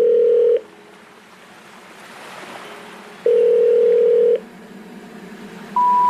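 Telephone line tones. A steady mid-pitched beep lasting about a second sounds twice, some three seconds apart. Near the end comes a quick rising three-note sequence, the special information tone that announces an unreachable number.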